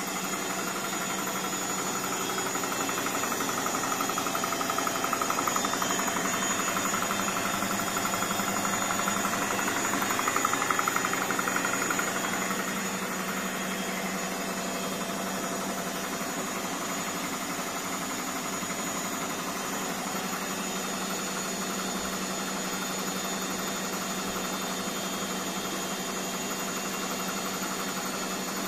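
Indesit BWSE 61051 washing machine on its spin cycle, with freshly replaced drum bearings: a steady motor and drum hum. It grows louder with a wavering whine from about four to twelve seconds in, then settles back to an even hum.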